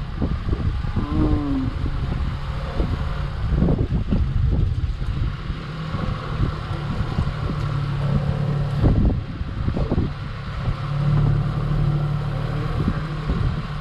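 Glass-bottom boat's engine running with a steady low hum, with a few brief thumps about four and nine seconds in.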